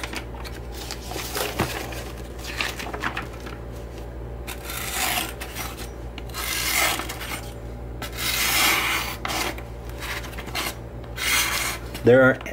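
Ontario Knife Company kukri's factory-sharpened 1095 carbon steel blade slicing through glossy magazine pages: a series of papery swishes and rasps about a second or two apart, the edge being tested for sharpness.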